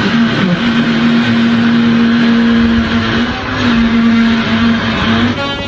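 Loud, unidentified machine noise: a steady buzzing drone over a harsh grinding rasp, breaking off briefly a few times. It is likened to the worst fart of all time, fingers on a chalkboard and an annoying circular saw.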